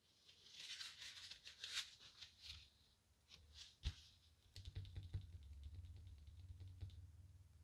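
Faint handling sounds: light ticks and rustling as small parts are handled, with one sharper click near the middle and a low rumble with soft ticks afterward.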